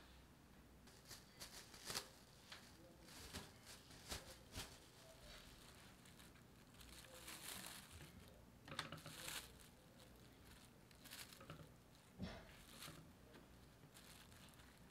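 Plastic cling wrap crinkling and rustling in faint, scattered bursts as it is drawn over a tray of bread dough and smoothed down. There are a few sharp light taps in the first few seconds.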